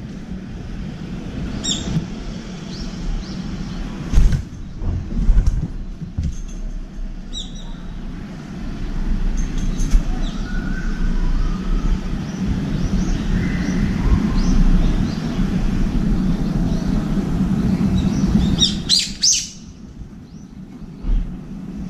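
Small birds chirping in short, high calls, with the loudest cluster of chirps near the end, over a steady low rumble that drops away sharply a couple of seconds before the end. A brief wing flutter sounds about ten seconds in as a dove takes off from the feeder.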